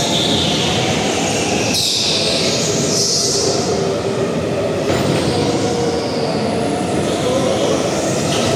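Go-kart driving on the track, its motor running steadily while the tyres squeal in short bursts through the corners, the loudest about two and three seconds in.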